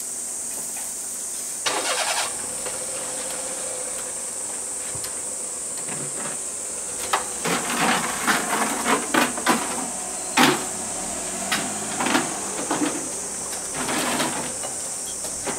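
Steady high-pitched drone of cicadas, with a run of sharp clinks and knocks from tongs and tableware at a tabletop grill from about halfway through.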